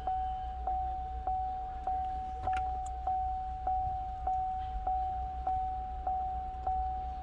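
2012 Chevy Cruze's warning chime dinging over and over, a single-pitched ding a little under twice a second, over a low steady hum.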